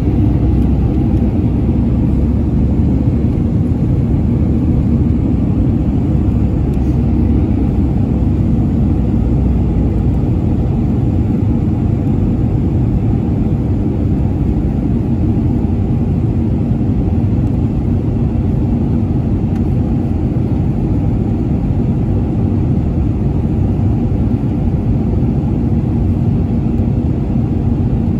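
Jet airliner cabin noise heard from a window seat during the descent to land: the turbofan engines and the air rushing past the fuselage make a steady low rumble with a faint hum.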